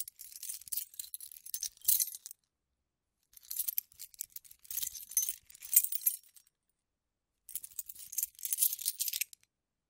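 A bunch of metal keys jangling in three separate shakes of a couple of seconds each, with short silent gaps between them.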